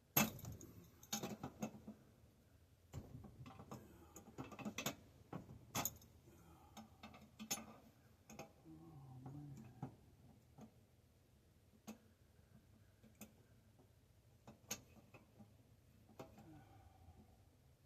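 Scattered light clicks and knocks of hand tools working on the bicycle's bottom bracket cups, irregular and busiest in the first several seconds, then sparser.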